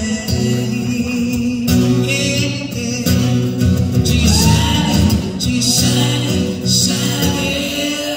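Live male vocal sung over a strummed jumbo acoustic guitar, amplified through a stage PA.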